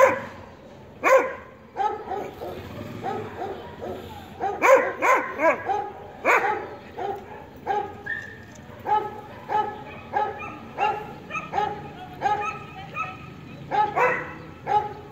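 A dog barking over and over: a few loud barks at the start, a quick run of barks about five seconds in, then a steady series of barks about two a second.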